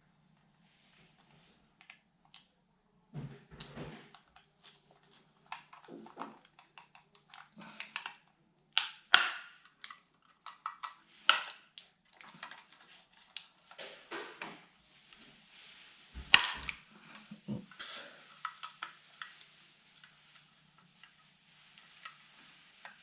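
Irregular plastic clicks, snaps and knocks of a DJI Phantom 4 drone battery pack being handled and worked on, with two sharp snaps about 9 and 16 seconds in.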